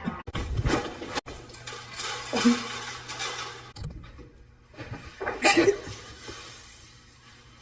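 Dishes clattering in a few short bursts, the loudest about five and a half seconds in.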